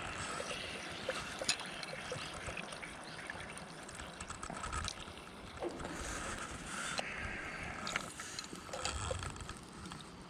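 A steady rushing noise like a flowing stream, with scattered sharp clicks and knocks.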